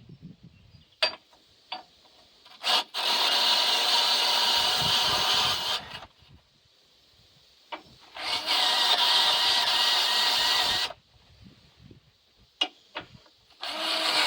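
Electric drill spinning a small wire brush against rusty carburetor parts, scrubbing off rust and corrosion. It runs in two bursts of about three seconds each, with a third starting near the end and sharp clicks in the pauses between.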